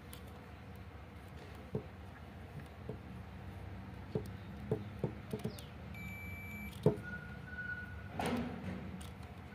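Small plastic clicks and taps from handling a drill's trigger switch and touching multimeter probes to its terminals, while testing the switch. A short high electronic beep sounds about six seconds in, over a low steady hum.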